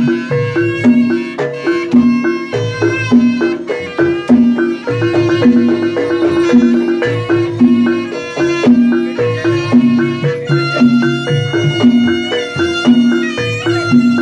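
East Javanese gamelan playing for a jaranan horse dance: metallophones and gongs strike a steady, repeating pattern. From about two-thirds of the way in, a held, wavering high wind melody, typical of the slompret reed shawm, sounds over the percussion.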